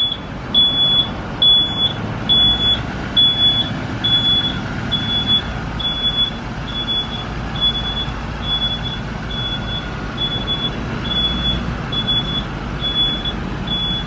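A vehicle back-up beeper sounding a high, evenly repeated beep about twice a second, over the low steady rumble of a bus engine running.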